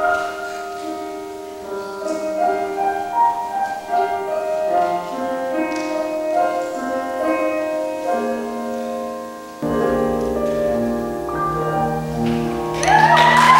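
Grand piano playing a slow, gentle passage of single notes and chords. About ten seconds in, deeper bass notes come in, and near the end the sound turns suddenly louder and fuller.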